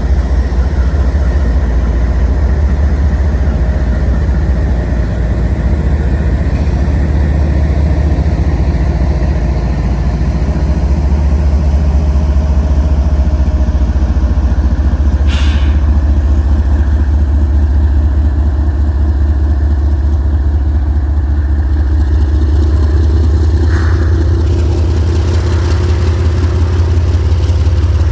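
A vehicle engine running steadily with a deep low rumble, its pitch rising slowly over the last several seconds. A short sharp click about halfway through.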